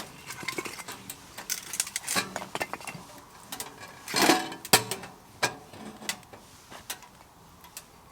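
Metal cookware and utensils being handled: irregular clinks and knocks, the loudest two about four and a half seconds in.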